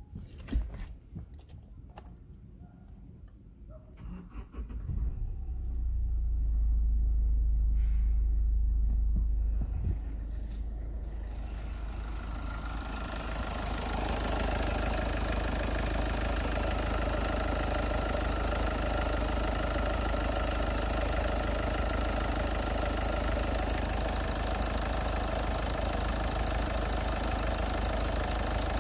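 Kia Ceed's 1.6 CRDi D4FB four-cylinder turbodiesel starting after a few clicks about four seconds in, then idling. At first it is a deep drone heard from the driver's seat. From about thirteen seconds in it is heard at the open engine bay, steady and brighter.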